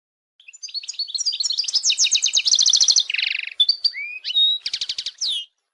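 European goldfinch singing: a fast twittering song of rapid trilled notes and chirps, with a buzzy stretch about three seconds in.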